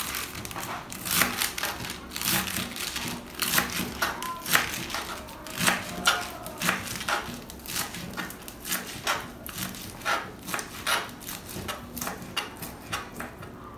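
A knife chopping bok choy stalks and leaves on a plastic cutting board: a run of crisp, uneven cuts, about two a second.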